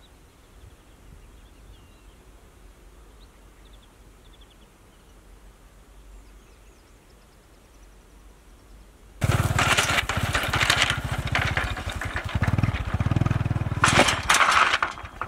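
Faint birds chirping, then from about nine seconds in a small motorbike engine running loudly as the motorbike tows a cart, its revs rising and falling.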